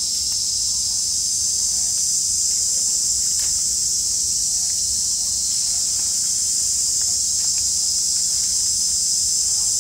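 A steady, high-pitched chorus of insects droning without a break, with a few faint short chirps beneath it.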